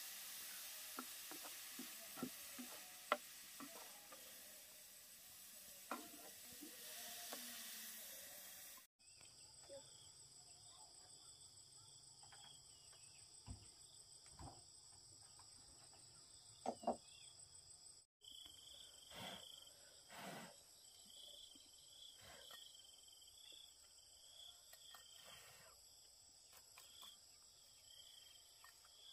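Faint sizzling of food frying in a pan, with a few sharp utensil clicks, for about the first nine seconds. It then gives way to a steady, high-pitched insect chorus of crickets, with scattered chirps and soft knocks.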